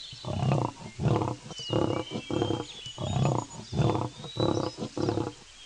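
An animal making a steady run of rough, grunting calls, about two a second, with small birds chirping in the background.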